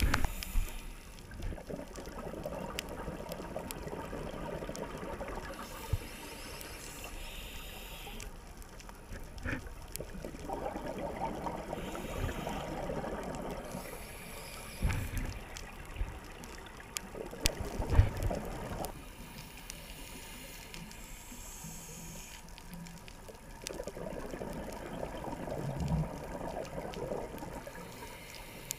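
Scuba diver breathing through a regulator, heard underwater: exhaled air bubbling out in long gurgling bursts several seconds apart, with short hisses of inhalation between them. A few brief low thumps are heard, the loudest about 18 seconds in.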